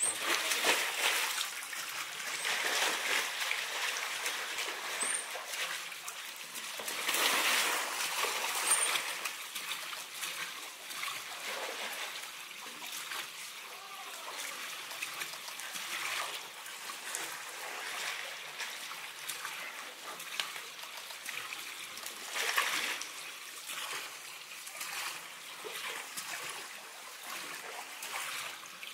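Water trickling and splashing steadily in an otter pool, swelling louder now and then. Near the start, an African clawless otter splashes into the water.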